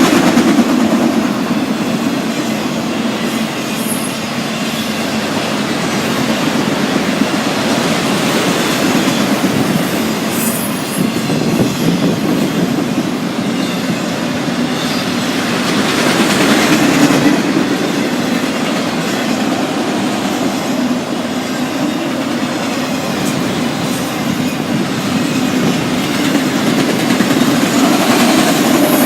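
Autorack freight cars rolling past at speed: a steady rumble of steel wheels on rail with clickety-clack over the rail joints, louder in a few swells, and a couple of brief high wheel squeals.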